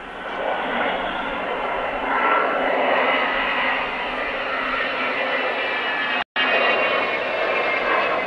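Avro Vulcan XH558's four Rolls-Royce Olympus turbojets as the bomber flies past overhead: loud jet noise that swells about half a second in, with steady high tones over it. The sound cuts out for an instant about six seconds in.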